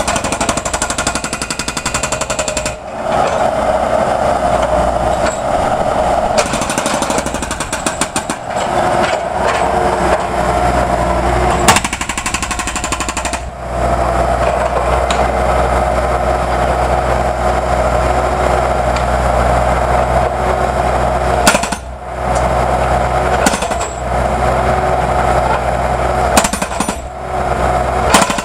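Jackhammer breaking up concrete in long runs of rapid hammering, stopping briefly a few times.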